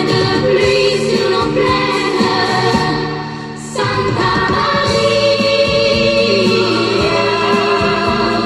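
Pop song played from a vinyl record: instrumental backing with a choir holding sustained sung notes. The music thins out for a moment about three and a half seconds in, then comes straight back in full.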